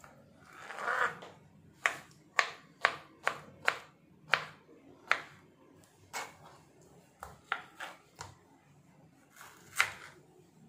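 Knife chopping mango into pieces: a soft scrape about a second in, then a run of sharp taps about two a second, followed by a few scattered taps, the last one near the end the loudest.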